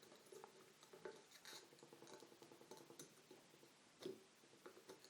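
Near silence with faint scattered small clicks and ticks of tools working on a soldered circuit board, a slightly sharper click about four seconds in.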